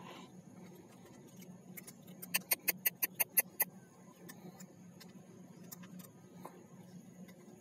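Kittens crunching dry cat food: a quick, regular run of about eight sharp crunches a little over two seconds in, with scattered softer clicks, over a faint steady low hum.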